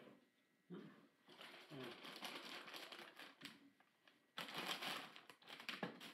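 Plastic packaging crinkling and rustling as it is handled and opened by hand, in two stretches of dense crackle with a short lull between them.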